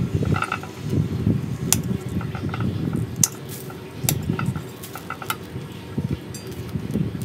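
Pruning shears snipping at a bonsai tree's branches, a few sharp clicks among the rustle of gloved hands working the tree.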